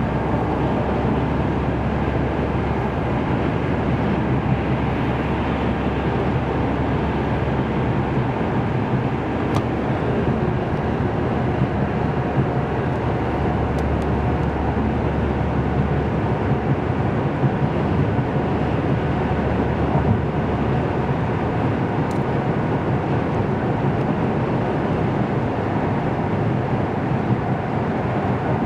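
Steady road noise of a car cruising at highway speed, heard inside the cabin: a constant low rumble of tyres and engine with hiss from the road and wind.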